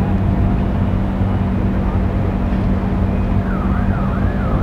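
Steady low engine drone with a constant hum. About three and a half seconds in, a warbling siren starts, its pitch rising and falling over and over.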